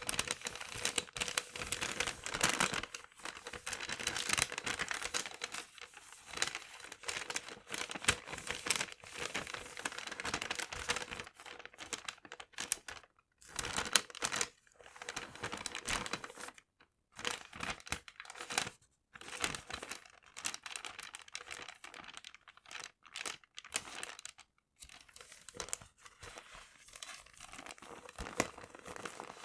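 Paper handled close to the microphone: crinkling and rustling in irregular bursts, with short pauses between handfuls.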